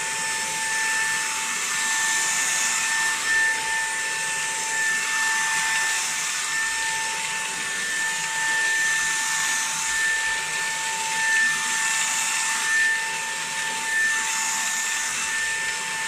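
Vax ONEPWR Blade 4 cordless stick vacuum running on normal power with its brush roller off, picking up crushed biscuit crumbs from carpet. A steady motor whine sits over a rush of air, and the rush swells slightly every couple of seconds.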